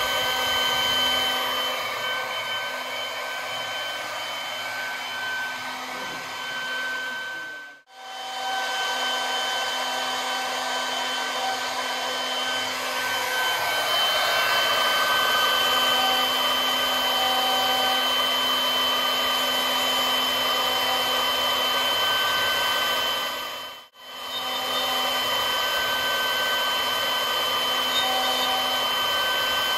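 AMMA Q10 CNC router's spindle whining steadily as a V-bit engraves lettering into olive wood, with a hiss of cutting under the whine. The sound breaks off for a moment twice.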